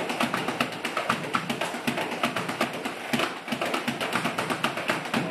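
Two cajóns played by hand in a fast, driving rhythm, a dense stream of sharp slaps over deeper thumps.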